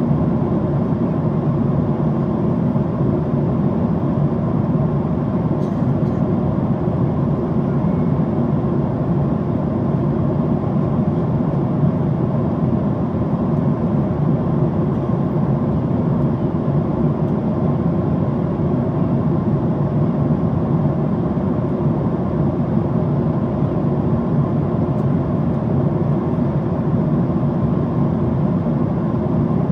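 Steady cabin noise of a Boeing 767-400ER in cruise, heard inside the cabin: an even rush of airflow and engine noise with a deep, constant rumble and no change in pitch or level.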